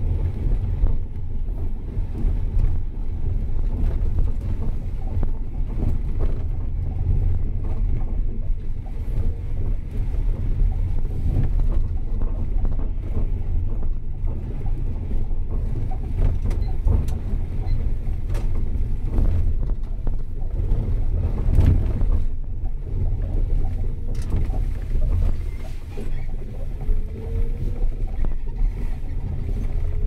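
Vehicle riding along city streets: a steady low rumble of road and wind noise, with a whine that rises in pitch near the end as it speeds up.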